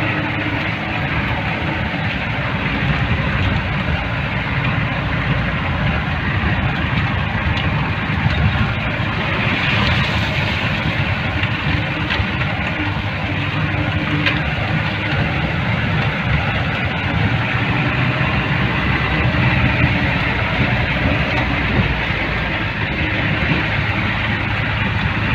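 A 4×4 jeep's engine running steadily, heard from inside the cab, with road noise from the rough dirt track.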